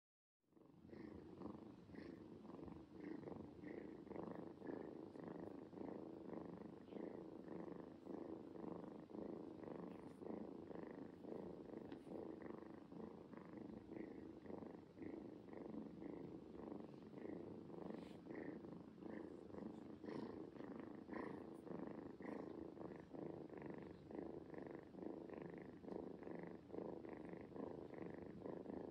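A grey tabby kitten purring steadily while being stroked, content and relaxed. The faint, even purr begins about half a second in and pulses about twice a second.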